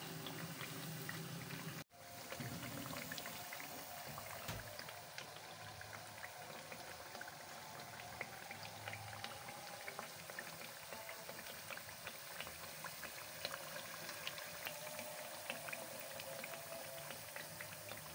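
Hash browns deep-frying in hot oil: a steady sizzle and bubbling full of tiny crackles. There is a brief gap about two seconds in.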